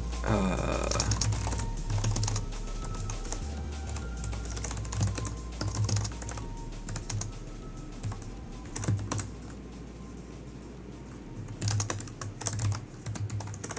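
Typing on a computer keyboard in bursts of clicks, with background music with a pulsing low beat underneath.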